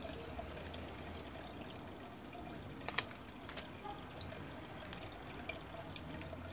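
Quiet handling of oracle cards: a few light, sharp clicks as long fingernails tap and slide the card stock, the clearest about three seconds in, over a low steady hum.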